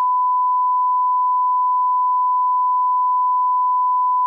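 Censor bleep: one steady, unbroken beep tone that replaces the voices of the argument being shown, starting and stopping abruptly.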